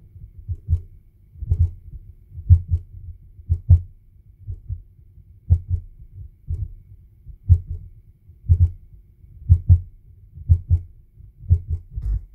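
Demodulated DCF77 77.5 kHz time signal from a radio-clock receiver module, heard as low thumps exactly once a second, each a short double thump. The pulses last either 100 ms or 200 ms, the binary zeros and ones that encode the time and date.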